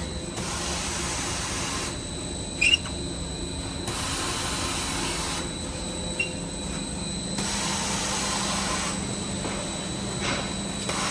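Paper-roll band saw cutting machine running with a steady hum and hiss, the hiss swelling and fading every couple of seconds. A brief sharp squeak comes about two and a half seconds in.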